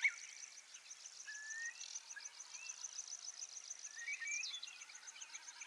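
Faint natural ambience: a steady, rapid high-pitched ticking call repeating throughout, with a few short bird whistles scattered over it.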